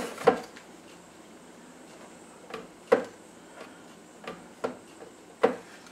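A glass-topped digital kitchen scale being handled and its buttons pressed on a wooden counter: about seven short, light clicks and knocks spread through, with quiet between.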